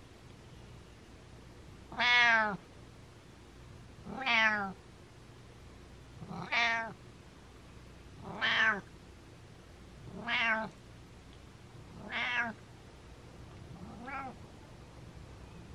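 Domestic cat meowing over and over, seven meows about two seconds apart, each rising and then falling in pitch; the last meow is fainter.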